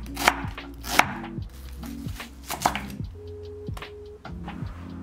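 Chef's knife slicing through an onion and striking a wooden cutting board: two sharp chops in the first second, then a few lighter ones about two and a half seconds in. Soft background music plays underneath.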